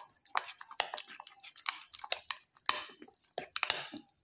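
Metal spoon stirring a thick, wet garlic-herb marinade paste in a glass bowl: irregular wet strokes, about three or four a second.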